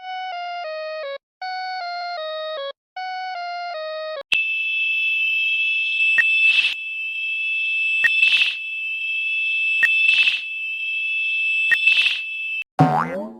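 Mock emergency-alert sounds: a short descending electronic chime played three times, then a steady high-pitched alarm tone with a click and a swelling rush about every two seconds. Near the end it cuts to a falling boing-like sound effect.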